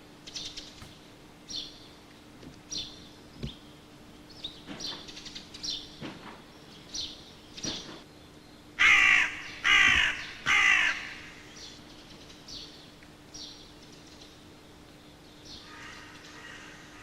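A crow-like bird cawing three times in quick succession, harsh and loud, with short high chirps of birds before and after.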